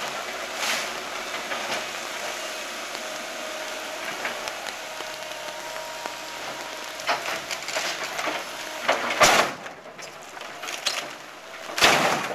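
Cat 312B excavator running while its bucket smashes into a wooden house's roof and wall. Timber cracks and debris crashes down, once about nine seconds in and more heavily near the end, over a steady hiss of rain.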